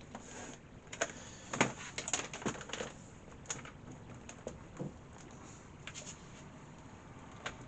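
Scattered clicks and light knocks of a laptop being handled on a bench, most of them in the first three seconds and a few more later.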